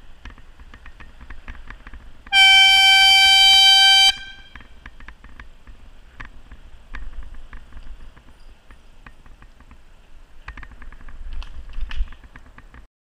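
A horn sounds one steady, single-note blast lasting nearly two seconds, much louder than the rest. Around it are low wind rush and scattered small rattles and clicks from a bicycle on the road.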